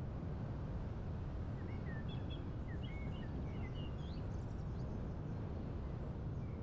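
Steady low wind rumble, with a small bird chirping a quick run of short rising and falling notes through the middle.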